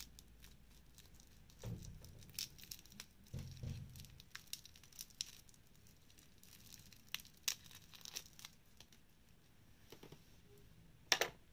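Thin clear plastic film crinkling and tearing as it is peeled off a watch's metal link bracelet: irregular faint crackles, with louder bursts about 2 and 3.5 seconds in and the sharpest one near the end.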